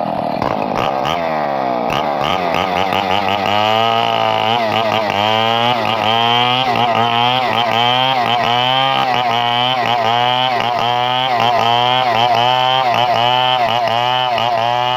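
Chainsaw engine running hard, its pitch dropping over the first couple of seconds and then wavering up and down about twice a second.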